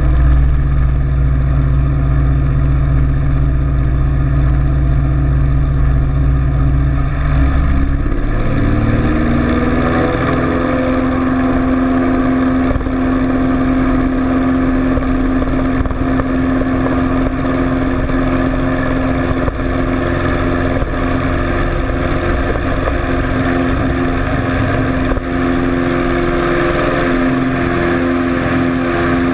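IAR 823's six-cylinder Lycoming piston engine and propeller running, with a lower steady note at first; about eight seconds in the engine goes up to takeoff power, the pitch rises and then holds a steady, higher drone through the takeoff roll on grass.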